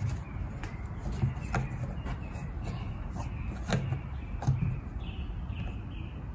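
Scattered small plastic clicks and knocks as red poultry watering cups are screwed by hand into the holes of a plastic container, with a few short high squeaks near the end.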